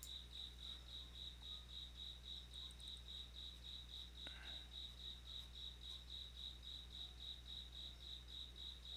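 Cricket chirping steadily in a high, even pulse, about four or five chirps a second, over a faint low hum. A single faint click comes about four seconds in.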